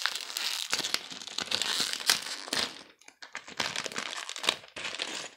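Foil sachet of LEGO bricks crinkling and crackling as hands pull at its firmly sealed top to tear it open, with a brief quieter moment about three seconds in.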